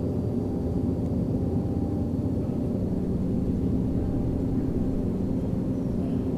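Outdoor tornado warning sirens sounding in the distance during a siren test, heard as faint steady held tones over a constant low outdoor rumble.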